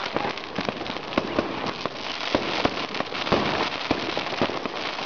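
Many fireworks and firecrackers going off at once: a dense, continuous crackle with frequent sharp bangs at irregular intervals.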